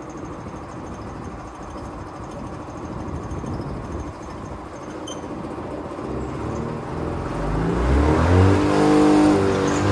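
Two-stroke engine of a 1978 Polaris Cobra 440 snowmobile running and growing steadily louder, then revving up with a rising pitch about seven to eight seconds in.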